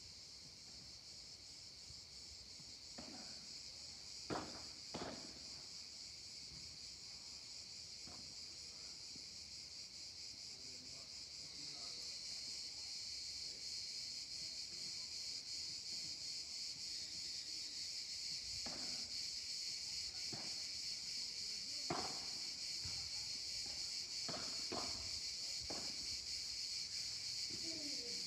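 A steady, high-pitched chorus of cicadas that grows louder about twelve seconds in, with the sharp knocks of padel rackets hitting the ball scattered through it, coming thicker in a rally near the end.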